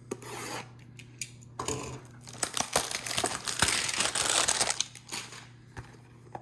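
A trading-card hanger box being opened by hand: scattered clicks, then a long stretch of rustling and tearing of the packaging.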